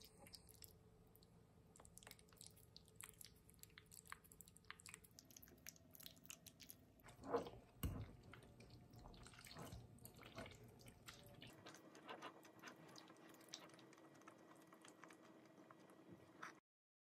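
Quiet eating sounds: a fork working pasta on a plate and a person chewing, with many small clicks and mouth smacks. There are two louder knocks about halfway through, and the sound cuts off just before the end.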